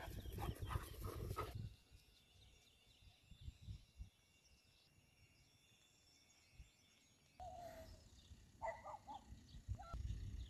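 A few short, faint animal calls, one sliding down in pitch and then a small cluster about a second later. A low rumbling noise on the microphone fills the first second and a half.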